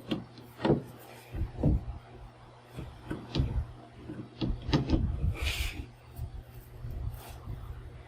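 Irregular knocks, taps and scraping as a plywood panel is handled and fitted against a van's back door, over a steady low hum.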